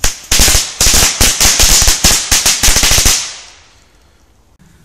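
Tom-Tam firecrackers from a Chinese firecracker assortment going off, a rapid string of sharp bangs for about three seconds before the bangs stop.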